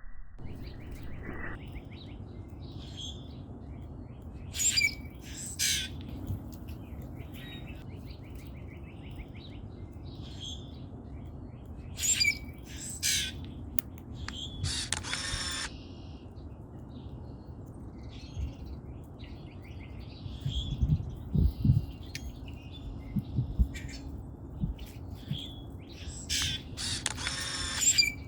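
Common grackles calling: harsh, creaky squeaks and rasping notes every few seconds, with smaller chirps in between, over a steady low background rumble. A few low thumps come about two-thirds of the way through.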